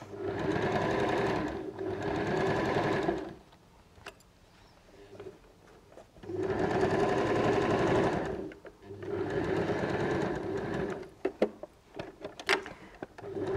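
Janome electric sewing machine stitching in short runs: two runs of about a second and a half at the start, a pause of about three seconds, then two more runs of about two seconds, as a seam is top-stitched. A few light clicks follow near the end.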